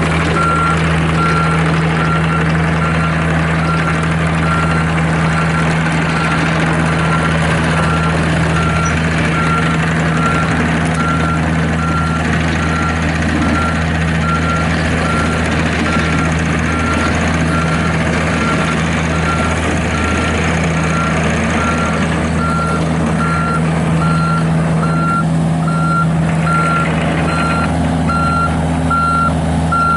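John Deere 50G mini excavator's diesel engine running steadily while its travel alarm beeps over and over, the sign that the machine is moving on its tracks; the beeping stops at the end.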